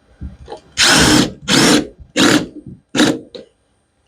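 A power drill run in four short bursts, driving a 75 mm roofing screw through timber into concrete.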